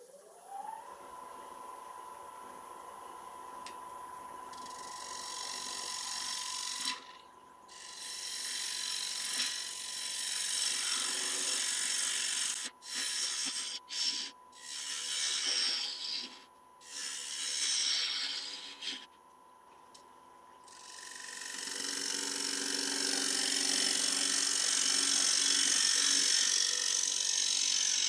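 Wood lathe motor spinning up with a rising whine that levels into a steady tone. A gouge then cuts into the spinning sycamore bowl blank, shavings hissing off in a series of short cuts with brief breaks between them. From about three quarters of the way through it becomes one long, unbroken cut.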